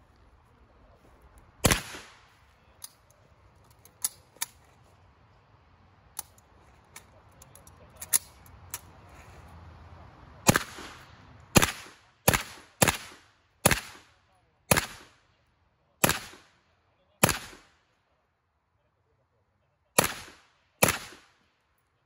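Action Arms Model A Uzi, a semi-automatic 9x19 mm carbine, firing single shots: one loud shot near the start, a few fainter pops, then a string of about ten shots at uneven intervals of roughly half a second to a second and a half, starting about halfway through.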